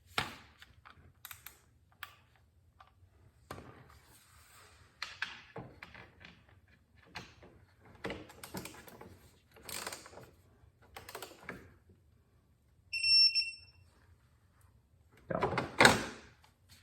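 Socket wrench and extension clicking and knocking on the motorcycle's oil drain plug as it is tightened to 30 foot-pounds. A short electronic beep sounds about 13 seconds in, and a louder rasping scrape comes near the end.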